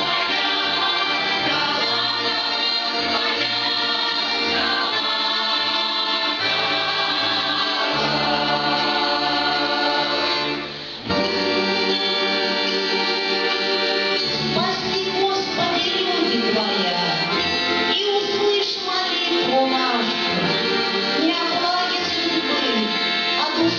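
Russian folk choir singing a song with instrumental accompaniment. The sound briefly drops about halfway through, then the voices come back with a wavering vibrato.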